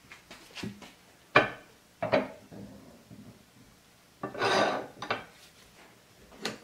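Hand arbor press pushing a part into a brake caliper through a wooden block: clacks and knocks of wood and metal, a sharp knock about one and a half seconds in, and a longer scraping rub past four seconds as the handle is pulled. The part goes in crooked, on one side.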